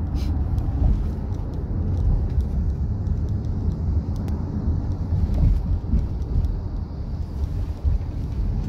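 Steady low road rumble inside the cabin of a moving car at highway speed.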